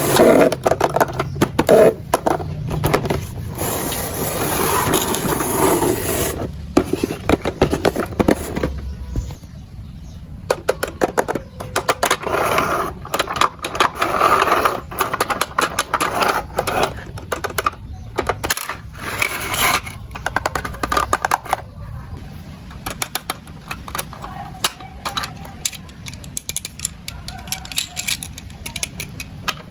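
Plastic toys and packaging being handled: an irregular run of clicks, taps and scrapes, with rustling that is busiest in the first few seconds.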